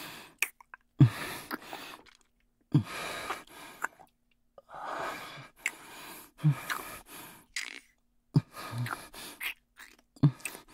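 Close-up kissing and heavy, breathy exhales from a man, about six in a row, each starting with a short sharp smack and trailing into breath.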